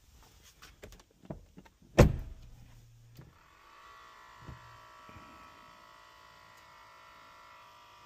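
A few light clicks and a loud car-door shut about two seconds in. From about three and a half seconds comes a steady electric whine: the 2024 BMW X5 xDrive50e's air suspension changing ride height as it goes into sport mode.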